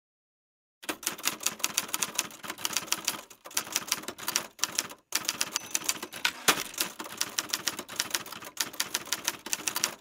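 Rapid typing keystrokes, several clicks a second, starting about a second in after silence, with brief breaks about three and a half and five seconds in.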